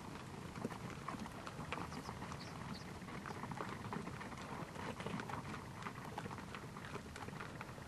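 Hooves of a herd of wild horses walking over sandy, gravelly desert ground: many irregular soft crunches and ticks from overlapping steps, over a steady low rumble.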